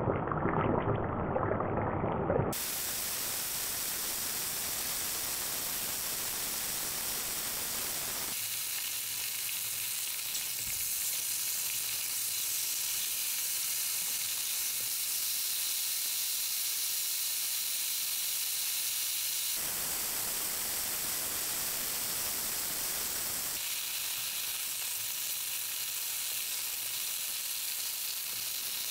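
Chicken thighs sizzling in hot oil in a skillet: a steady frying hiss, louder for the first couple of seconds.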